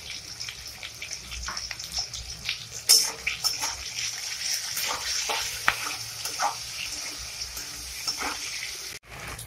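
Sliced onions, tomatoes and green chillies sizzling in hot oil in a metal wok, with a flat metal spatula scraping and clacking against the pan as they are stirred; one sharp clack about three seconds in.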